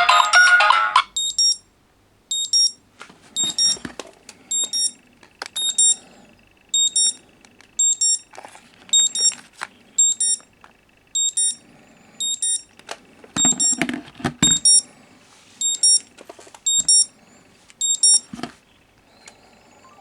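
A phone's ringtone melody cuts off about a second in. A smartphone alarm then beeps in short, high double beeps, about one pair every 0.7 s, and stops near the end. Soft knocks and rustles fall in between, with a cluster of louder knocks around the middle.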